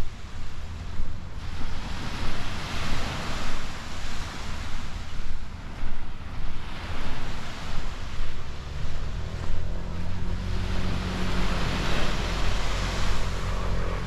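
Sea waves washing onto the shore, the surf hiss swelling twice, with wind buffeting the microphone. A faint low hum comes in about two-thirds of the way through.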